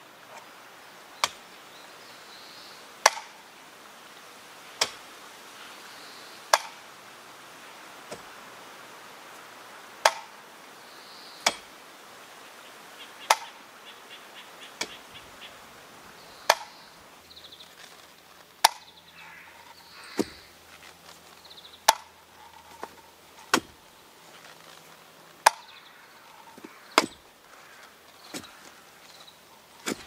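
A long-handled metal digging tool is driven into the ground again and again, about once every one and a half to two seconds. Each stroke gives a sharp strike with a brief metallic ring. Faint birdsong sounds in between.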